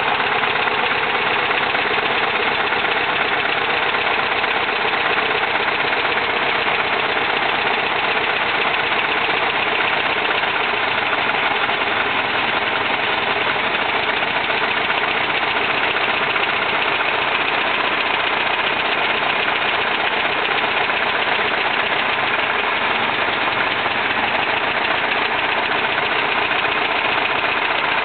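A 1971 Volkswagen Type 3 Fastback's air-cooled flat-four idling steadily with a misfire. The owner finds it running on only two cylinders: pulling the plug wires from cylinders 1 and 3 makes no difference to the idle.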